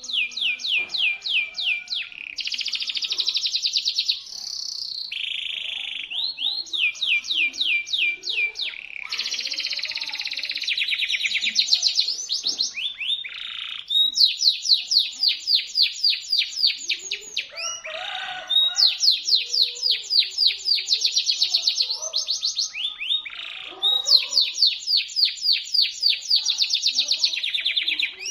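Domestic canary singing shrill, sharp song: long rolls of rapid, repeated down-sweeping notes, many to the second, in phrases of a few seconds with short breaks between them.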